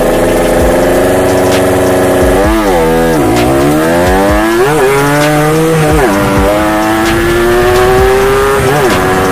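Yamaha Alfa two-stroke motorcycle engine held at high revs, the throttle eased off and opened again several times, with a dip and climb back about two and a half seconds in and a slow rise in revs near the end.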